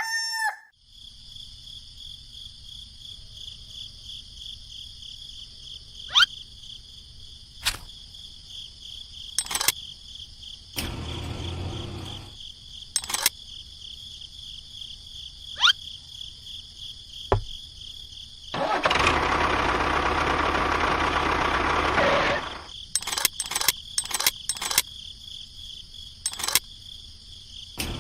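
Steady, pulsing high-pitched drone of insects outdoors, broken by scattered sharp clicks and two stretches of louder rough mechanical noise: about a second long near 11 seconds in, and about three seconds long starting near 19 seconds in.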